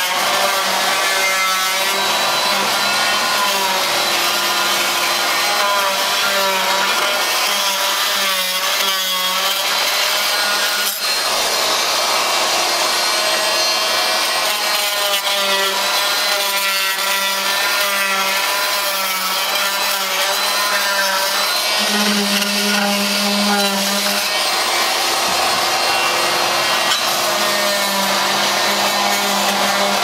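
Fein oscillating multi-tool buzzing as its blade trims hardwood dowel plugs flush with the wood, its pitch wavering as it cuts, over the steady running of a shop vacuum held at the blade to pick up the sawdust.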